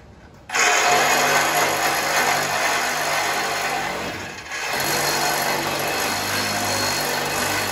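An electric power tool running under load on metal parts of the truck chassis. It starts about half a second in with a loud, steady, hissing whine, eases off briefly around four and a half seconds in, then runs on.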